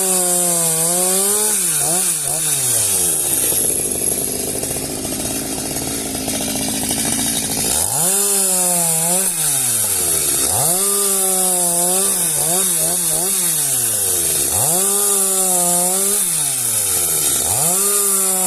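Two-stroke chainsaw engine revved up and let back down again and again, each burst of throttle holding briefly at a high, steady pitch before falling away. A rougher stretch without a clear pitch runs from about three to seven seconds in.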